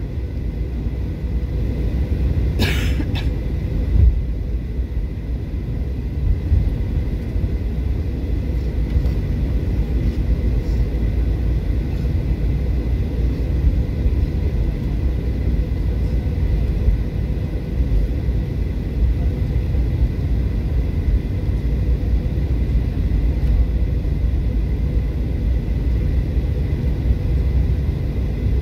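Cabin sound of a Boeing 737-800 taxiing: a steady low rumble from its idling CFM56-7B engines and its landing gear rolling over the taxiway.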